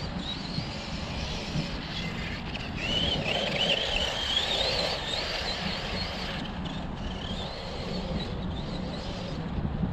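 Losi 3XL-E electric RC truck's Hobbywing 2250kv brushless motor and drivetrain whining under throttle, the whine climbing in pitch as the truck speeds up, loudest about three to six seconds in and rising again near the end of the run, over a steady rumble of tires on dirt and wind.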